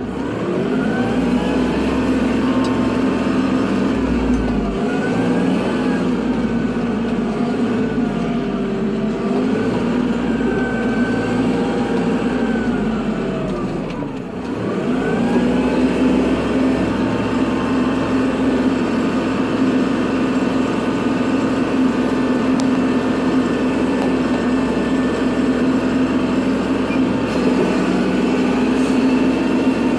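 Kubota tractor's diesel engine running steadily under load while plowing snow. Its pitch sags and recovers right at the start and again about halfway through.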